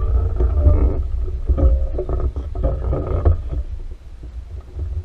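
Wind buffeting the microphone: an uneven low rumble with gusty bursts, easing off about four seconds in.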